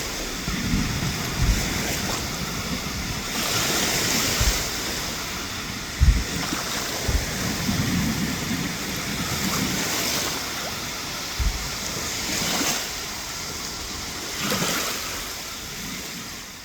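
Surf washing onto a beach, a steady rush that swells every few seconds as waves break, with a few short low thumps of wind on the microphone.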